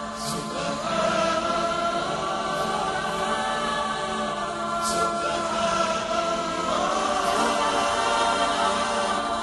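Background vocal music: a choir singing long held notes that slowly glide in pitch, with a soft hiss twice.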